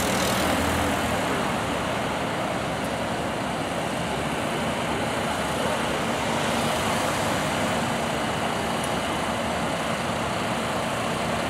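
Steady noise of running engines and road traffic, with no distinct events.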